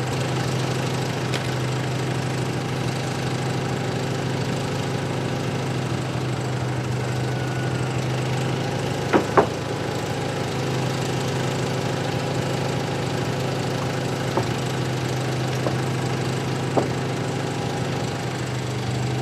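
Mighty Mite bandsaw mill's engine idling steadily, not under cutting load, with two sharp knocks about nine seconds in.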